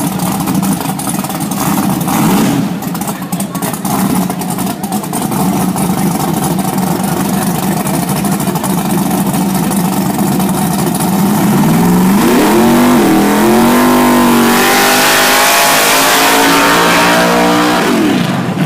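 Fox-body Ford Mustang's engine idling steadily, then revving up about two-thirds of the way through and held at high revs while the rear tires spin in a burnout. Harsh tire noise hisses over the engine for the last few seconds, and the revs drop right at the end.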